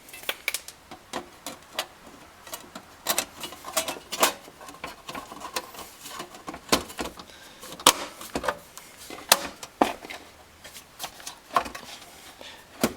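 Irregular clicks and light knocks of a car radio's top cover being fitted to the chassis, its front tabs slid into their slots and the cover pressed down into place, with a few sharper clicks among them.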